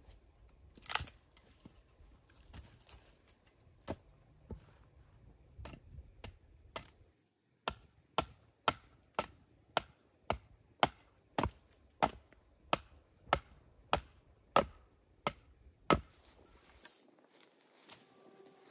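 Axe chopping into a log: a few scattered strikes, then from about eight seconds in a steady run of blows about two a second, stopping shortly before the end.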